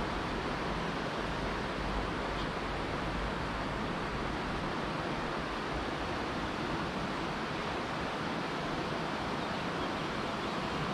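Steady rushing of river water flowing, an even hiss with no breaks or separate sounds.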